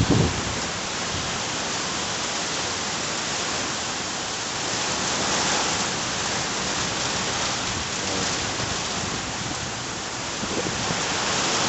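Heavy rain pouring down in a steady hiss on surfaces. It swells slightly about halfway through and again near the end.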